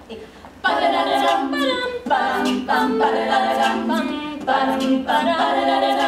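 Women's a cappella group singing in harmony without instruments, the voices coming in together a little under a second in with short, rhythmic backing chords.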